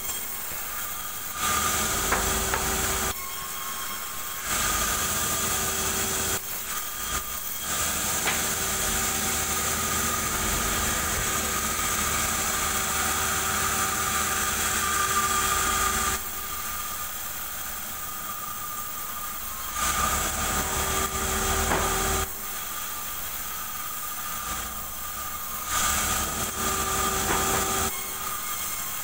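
Sawmill bandsaw running steadily, alternating between idling and louder stretches of the blade cutting through durian wood, with level steps up and down every few seconds.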